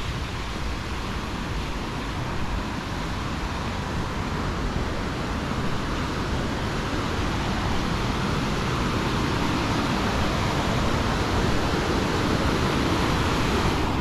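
Steady rushing of white water from a small waterfall and rapids tumbling over rocks, growing gradually louder.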